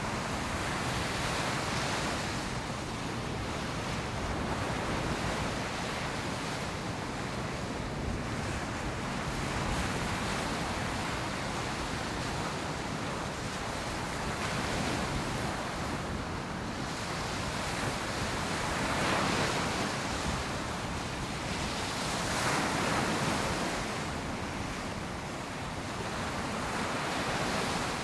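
Ocean surf breaking on a beach: a continuous wash of waves, swelling every few seconds as each wave breaks. The loudest breaks come about two-thirds of the way through.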